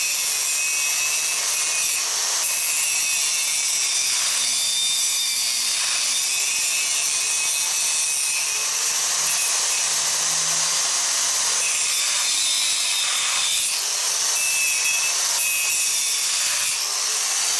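Angle grinder cutting metal with its abrasive disc: a continuous loud, high-pitched grinding hiss. The motor's high whine rises in pitch a couple of times late on.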